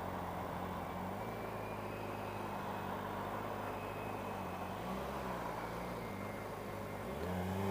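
Motorcycle engine running at low revs in slow traffic: a steady low drone, rising and falling briefly as the throttle is eased open about five seconds in and again near the end.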